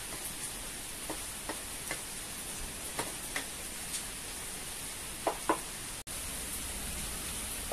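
Wooden spatula scraping and knocking in a frying pan as fried chicken hearts are scooped out onto a metal tray: several short, sharp knocks, the loudest two in quick succession near the end, over a steady hiss.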